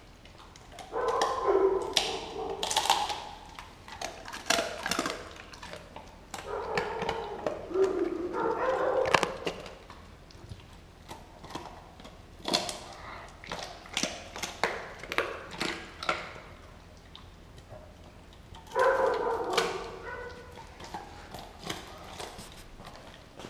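Doberman chewing and tearing at a whole raw turkey, with many sharp clicks and cracks of teeth on meat and bone. Three times, about a second in, around seven seconds in and near the end, a dog gives a drawn-out vocal sound lasting a couple of seconds.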